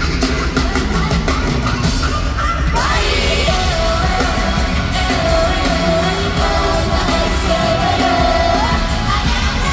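Live K-pop concert music over an arena sound system: a heavy beat with a female voice holding long, wavering sung notes, and shouts from the audience.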